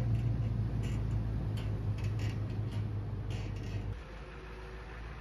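Pickup truck engine pulling a log-loaded flatbed trailer away, a steady low drone that drops off about four seconds in as the truck moves out of sight, with a few faint clicks.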